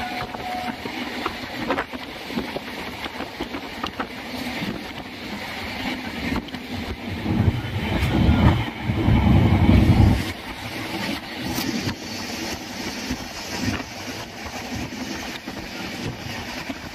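Passenger train running, heard through an open carriage window: a steady rumble with the clatter of wheels over the rails and wind on the microphone, swelling to a louder low rumble for about two seconds midway.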